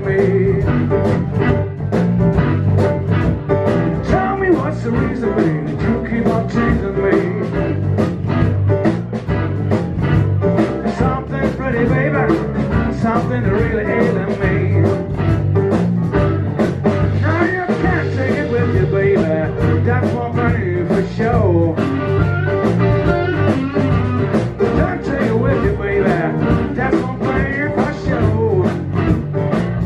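Live blues band playing a shuffle: electric guitar, electric bass, keyboard and a drum kit keeping a steady beat.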